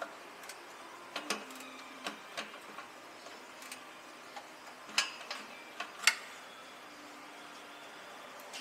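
Sharp, irregular metallic clicks of hand tools at work, about ten in all, the loudest two about five and six seconds in.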